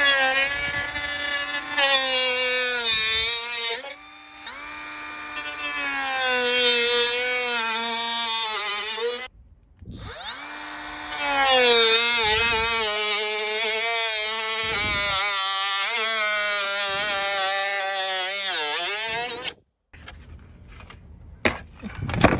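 Milwaukee M12 cordless cut-off tool cutting through a plastic underbody panel, its motor whining and dipping in pitch as the wheel bites. It runs in two long cuts with a short stop between them, then stops, and a few light clicks follow near the end.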